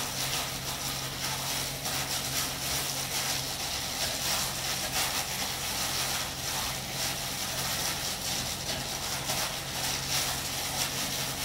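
Plastic-gloved hand mixing cooked rice and shrimp paste in a bowl, soft and irregular, over a steady low hum and hiss.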